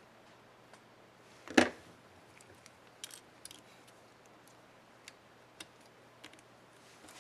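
Plastic laptop keycap on an HP Stream 11 keyboard clicking as it is fitted: one sharp snap about a second and a half in, then several lighter clicks.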